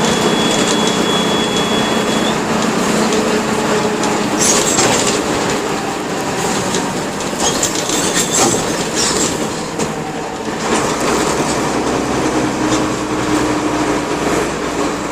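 Mercedes-Benz OF-1721 bus with its OM-366LA six-cylinder turbodiesel running under way, a steady engine and road noise mixed with many small clicks and rattles.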